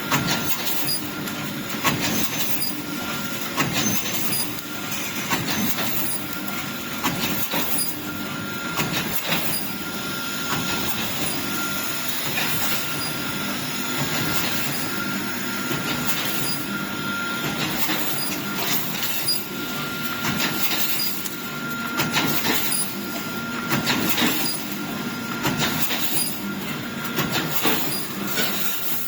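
Automatic wire mesh welding machine running: a steady mechanical clatter and hiss, with a faint steady whine and many irregular sharp metallic clacks.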